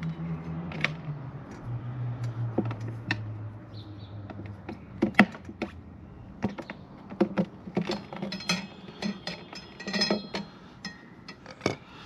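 Metal tyre levers clicking and knocking against a motorcycle wheel rim as the tyre bead is worked off over the rim lip. There is a sharp knock about five seconds in and a low hum during the first few seconds.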